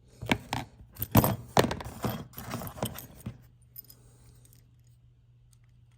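Small metal hardware clinking and rattling as it is handled, a quick irregular run of clicks and jingles for about three seconds, then a few faint ticks.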